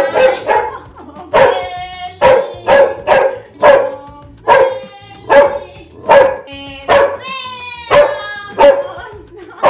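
A dog barking over and over, about two sharp barks a second.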